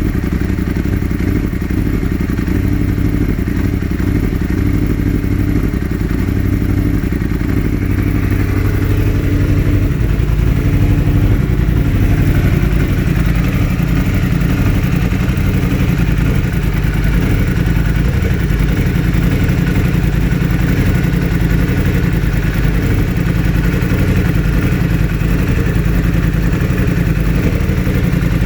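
2016 Yamaha R1's inline-four engine running with a constant misfire on cylinder 4, a misfire that swapping its ignition coil with cylinder 1's has not cured. The engine note shifts and grows slightly louder about ten seconds in.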